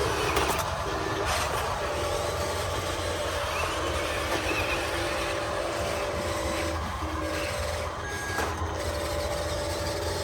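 1:16 scale RC heavy equipment working: electric motors and gearboxes running with a steady mechanical whine, several held tones that stop and start as the machines move.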